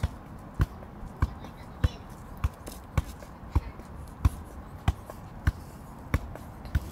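Soccer ball being juggled, kept in the air with feet and knees: a regular run of sharp thuds as the ball is kicked up, about eleven touches at a little under two a second, without a break.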